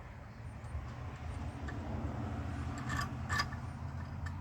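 Hand saw being worked against wood clamped in a vise while trying to start a cut, with light scraping and two sharp clicks about three seconds in, over a steady low hum.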